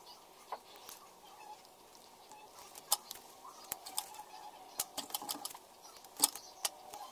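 Hands handling paper leaflets and a small plastic bag of parts: scattered light clicks and taps with faint rustling. The sharpest come about three seconds in and again near the end.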